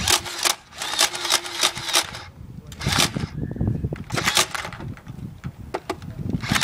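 Toy Nerf blaster being worked and fired: clusters of sharp plastic clacks and clicks, coming in several bursts a second or so apart.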